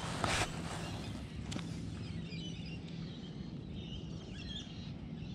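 A fishing rod cast swishes briefly right at the start. Faint bird chirps follow over a low steady hum and outdoor background noise.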